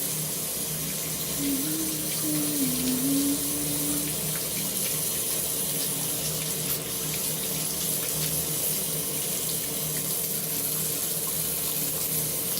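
Bathroom sink tap running steadily while a rubber ink stamp is rinsed and scrubbed clean under the water. A short wavering tone sounds from about one and a half to four seconds in.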